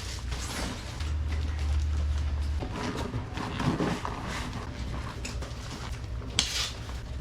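Camping gear and straps being handled while packing a motorcycle: rustling with light clinks and clicks of buckles, over a steady low rumble.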